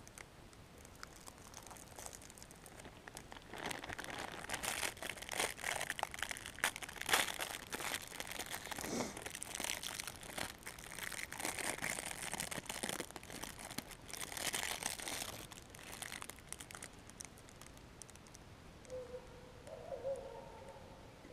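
Clear plastic snack wrapper crinkling and rustling as it is pulled open by hand around a pastry. It starts a few seconds in, is loudest a few seconds later, and dies away about three-quarters of the way through.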